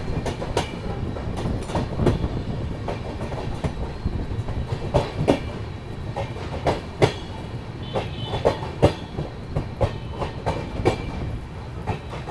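Humsafar Express LHB coach rolling along the rails, a steady rumble with irregular wheel clicks over rail joints, heard from the open coach door as the train runs into a station.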